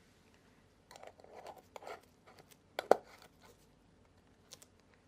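A series of short clicks and knocks, the loudest and sharpest a little under three seconds in, with two faint ticks later on.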